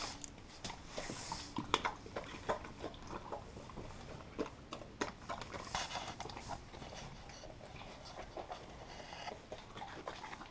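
A dog chewing raw salad vegetables such as carrots and lettuce: soft, irregular crunches and clicks.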